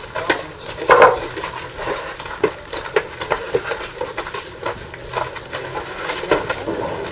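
Footsteps of cattle and of people in rubber boots on straw-littered ground: irregular scuffs and light knocks, a few each second.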